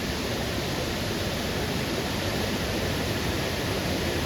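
A waterfall's steady rushing noise: falling water heard as a constant, even wash of sound.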